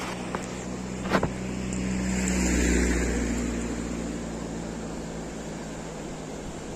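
A car driving past, its noise rising to a peak about three seconds in and then slowly fading, over a steady low hum, with a sharp click about a second in.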